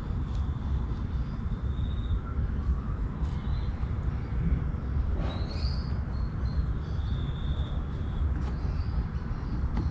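Background ambience: a steady low rumble with birds calling faintly, a few drawn-out whistled notes near the start and again later, and a short rising call about halfway through.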